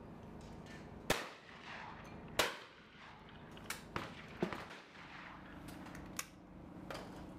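A shotgun fired twice at clay targets, the two shots about a second and a quarter apart, followed by a few lighter clicks and knocks.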